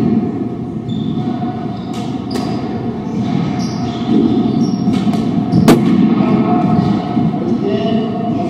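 Squash ball strikes during a doubles rally: a few sharp cracks of racquet and ball against the court walls, the loudest about two-thirds of the way in, over a steady low background rumble.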